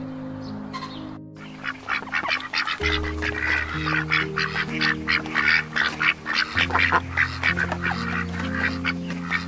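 A flock of domestic ducks quacking rapidly and continuously, starting about a second in, over soft background music with sustained notes.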